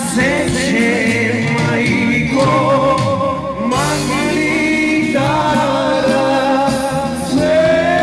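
A Macedonian folk song, sung with musical accompaniment; the voice holds long, wavering notes.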